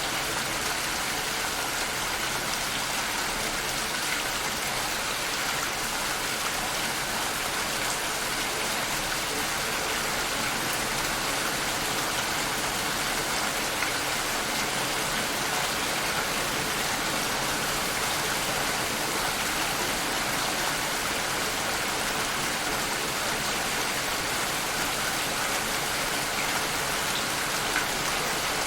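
Steady rainfall, an even hiss of rain with scattered drops pattering on a surface.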